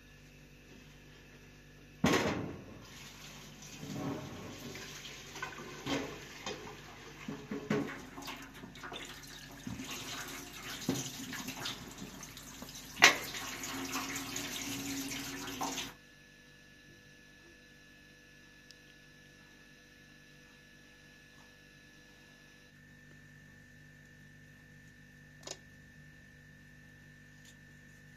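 Water running from a tap into a metal sink and over onions in an aluminium colander, with metal pots and bowls clanking, two sharp clanks loudest. About halfway through it stops abruptly, leaving only a faint steady hum.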